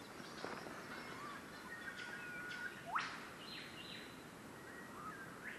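Forest birds calling: short whistled notes and one loud, quickly rising whistle about three seconds in, over a soft outdoor background hiss, with a few faint knocks and rustles near the start.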